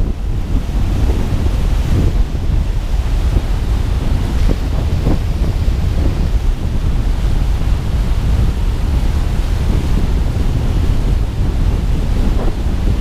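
Water pouring over a dam spillway and churning in the pool below: a steady, loud rushing, with wind buffeting the microphone.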